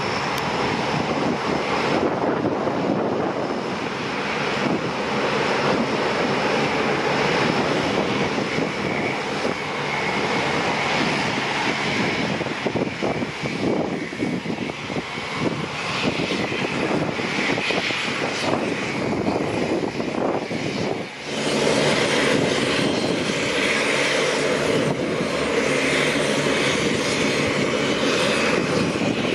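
Lockheed CC-130J Hercules taxiing on the ground, its four Rolls-Royce AE 2100D3 turboprops and six-bladed propellers running as a steady drone with a whine. Briefly quieter about two-thirds of the way through, then steady again with a more even whine.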